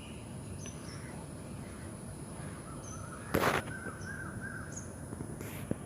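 Birds calling in a park: faint short chirps throughout and one loud, harsh call, typical of a crow's caw, about three and a half seconds in, over a steady high-pitched tone.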